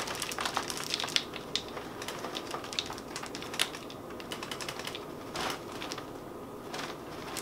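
Reese's Puffs cereal pouring from its cardboard box into a clear plastic blender cup, the puffs landing as many quick, irregular clicks that thin out after about four seconds.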